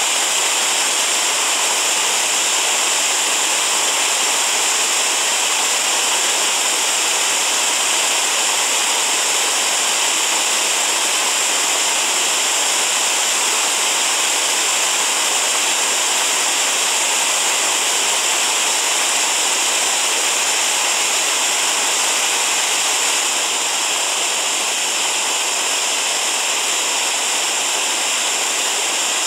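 Mountain creek cascading over granite boulders: a loud, steady rush of white water.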